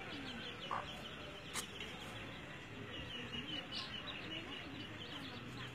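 Chicks peeping constantly while they feed around a scratching hen: many short, high chirps overlapping without pause. A single sharp click about a second and a half in.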